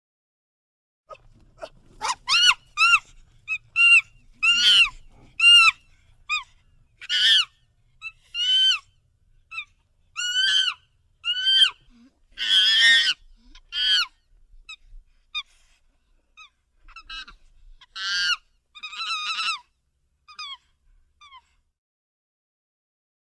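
Monkey giving a long series of short, high-pitched calls, each rising then falling in pitch, with a harsher, noisier call about halfway through.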